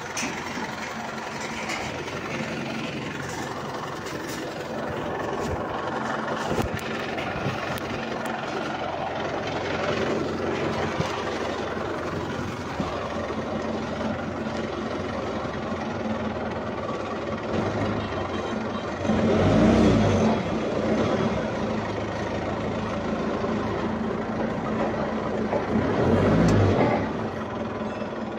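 Small tractor's diesel engine running steadily at idle, revving up briefly twice, about two-thirds of the way in and again near the end.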